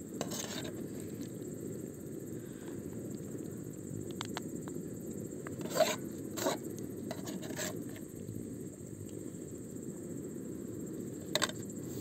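A steady low rushing noise with a few light clicks and clatters scattered through it, the loudest about six seconds in.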